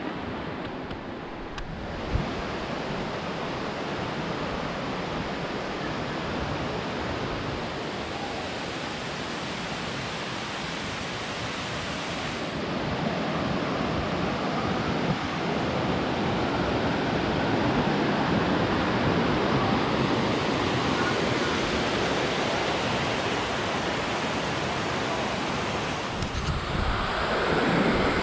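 Rocky mountain stream rushing over boulders, a steady rush of water that grows louder about halfway through.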